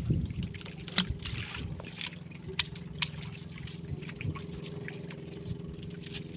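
Water lapping and trickling against the hull of a small outrigger boat, with a few sharp clicks and a steady low hum underneath.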